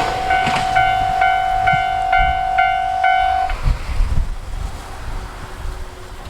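Japanese railway level-crossing alarm ringing in an even two-tone ding about twice a second, then stopping about three and a half seconds in as the train clears the crossing. Under it the low rumble of the passing diesel express fades, with a few low thumps just after the alarm stops.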